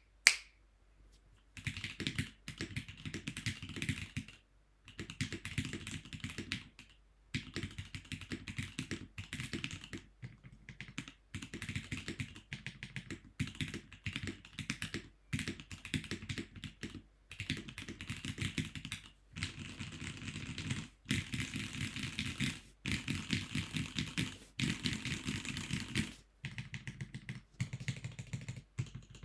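Typing on a Teleport Anvil mechanical keyboard with Gateron Pro Yellow linear switches and stock keycaps: fast runs of key presses in bursts of a second or two, separated by short pauses. The strokes give a deep thock along with a brighter clack.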